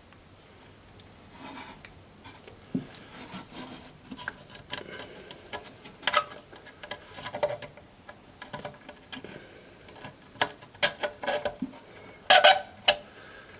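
Hands handling the plastic parts of a toilet fill valve: irregular clicks, taps and rubbing as the refill hose and its plastic clip are pushed onto the spout in the tank. There are a few louder sharp knocks near the end.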